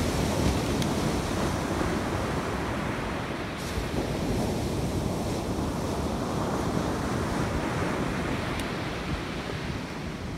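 Rough ocean surf: a steady wash of waves breaking on the beach.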